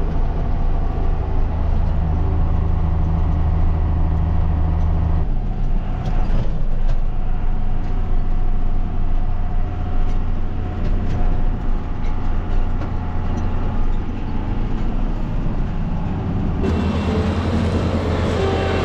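Farm tractor engine running steadily under load, a low diesel-type drone. The engine note shifts abruptly about five seconds in and again near the end.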